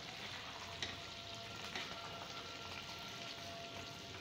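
Thick chicken and lentil daal sizzling and simmering in a pot as it is stirred with a wooden spoon, with a couple of light clicks of the spoon about one and two seconds in.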